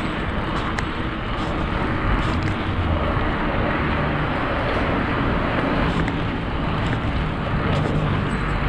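Steady wind rush and rumble on the camera microphone of a moving bicycle, with a few light clicks.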